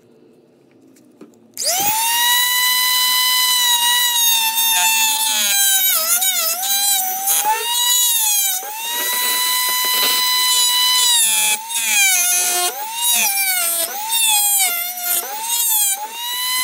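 Dremel rotary tool with a cut-off wheel spinning up about a second and a half in, then running with a high whine. Its pitch sags again and again as the wheel bites into the shock collar's plastic housing and recovers when it comes free.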